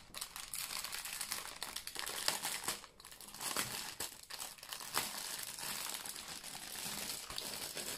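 Clear plastic wrapping crinkling as hands open a packed bundle of diamond painting drill bags: a steady stream of crackles, with a short lull about three seconds in.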